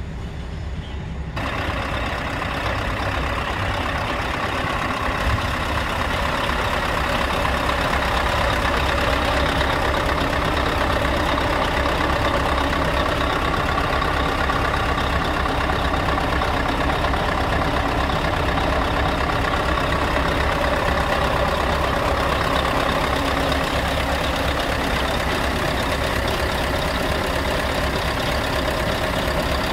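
Scania R tractor unit's diesel engine idling steadily, becoming louder and fuller about a second in.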